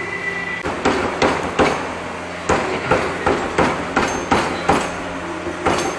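Repeated hammer blows on a Honda PCX scooter's rear wheel assembly, three quick strikes, a short pause, then a steady series of about three a second: a part being knocked loose without a puller.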